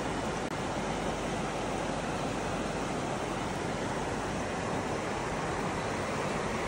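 Shallow mountain stream flowing over rocks, a steady, even wash of water.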